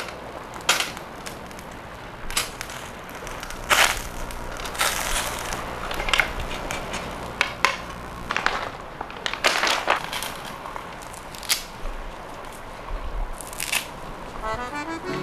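Metal tongs clicking and clattering against a wire grill and a metal tin as pieces of grilled meat are lifted into the tin, in irregular sharp clinks with some scraping and handling noise between them. Music comes in near the end.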